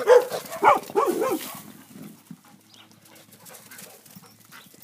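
Dogs barking in play, a quick run of three or four loud barks in the first second and a half, then quieter scuffling sounds.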